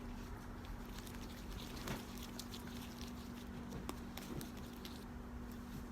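Soft handling noises of slime being kneaded, with a few faint clicks and taps, over a steady low hum.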